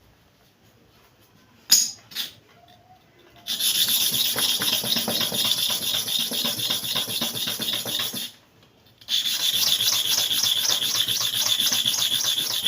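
Hair clipper bottom blade rubbed rapidly to and fro on a sharpening surface: a fast, rough scraping at roughly four strokes a second. It starts a few seconds in after a couple of clicks, stops briefly about two-thirds of the way through, then resumes.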